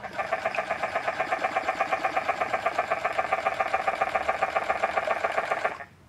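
Chatter Duck remote-controlled mallard decoy running its loudest setting, the 'chatter duck cadence': a loud mechanical chattering, a fast even rattle of roughly eight to ten pulses a second, meant to imitate ducks chattering on the water. It cuts off suddenly near the end.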